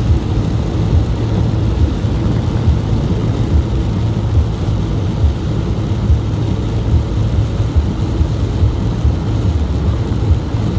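Steady low rumble of a car driving at speed on a rain-soaked expressway: tyres on wet road and road noise heard inside the cabin.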